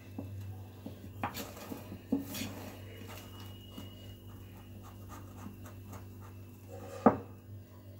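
Hand whisk stirring a thick flour batter in a ceramic bowl: soft, rapid scraping strokes, with a sharper knock against the bowl about a second in and again near the end.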